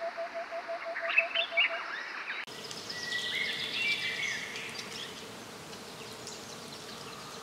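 Natural ambience of birds chirping over an insect-like trill pulsing about seven times a second. About two and a half seconds in it switches abruptly to a different backdrop of birdsong.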